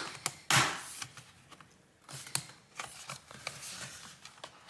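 HP Envy 13-ag laptop's bottom cover being worked loose and lifted off by hand. There is a louder rasp about half a second in, then a run of small clicks and taps as the cover's edges come free.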